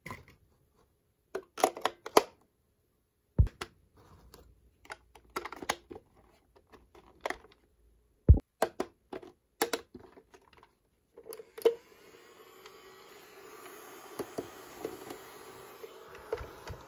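Small plastic toy pieces being handled and set down: scattered clicks and taps, with two firmer knocks at about three and a half and eight seconds. From about eleven seconds in, a steady rushing hiss with a faint hum joins them.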